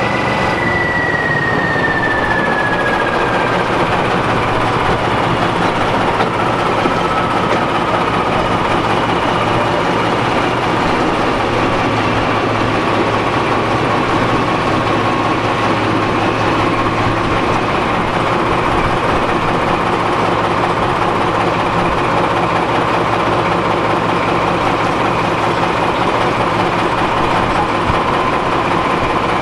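Class 14 diesel-hydraulic locomotive running on the move, heard from beside the cab. A steady engine and transmission noise is joined by a whine that falls in pitch over the first several seconds and then holds level.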